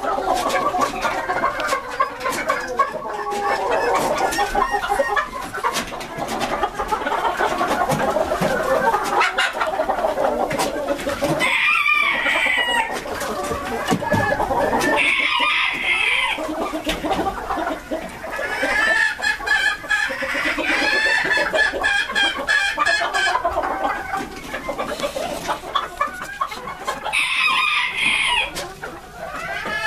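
Flock of Gray Japanese Bantam chickens clucking continuously, with bantam roosters crowing several times over it.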